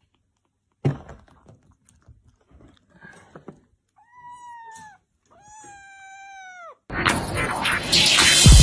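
A thump about a second in, then a domestic cat meowing twice, two long drawn-out calls, the second longer and falling at its end. Loud music cuts in suddenly near the end.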